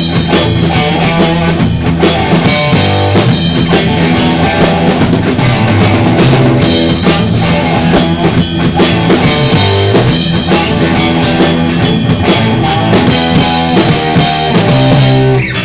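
Rock band playing live, with drum kit, bass and electric guitar, loud and dense; the band stops abruptly near the end.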